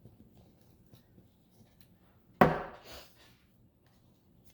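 Faint handling of small twigs and a glue stick on paper, with one short, loud pitched sound about two and a half seconds in and a smaller one just after.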